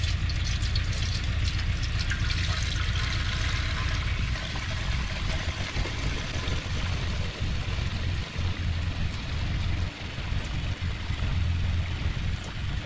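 Soapy water poured in a steady stream from a plastic bucket into the filler neck of a bandsaw mill's metal tank, with a low rumble underneath.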